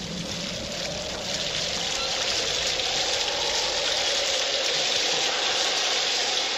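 Steady rain falling, a dense even hiss that grows a little louder after about a second.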